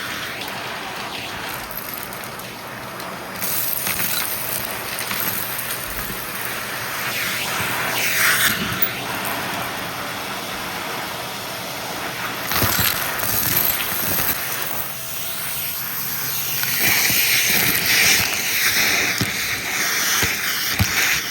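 Shark vacuum cleaner running steadily through a small-mess pickup test, with louder, hissier stretches about eight seconds in, around twelve seconds, and again near the end.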